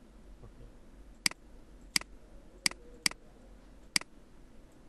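Computer mouse clicking five times at an uneven pace, each a short, sharp click.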